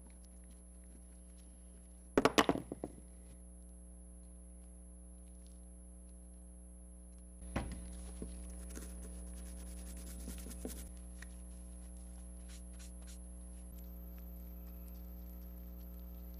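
Small parts and tools handled on a wooden workbench: a quick cluster of sharp clacks about two seconds in, as something is set down or knocked against the bench, then scattered light clicking from about halfway, all over a steady hum.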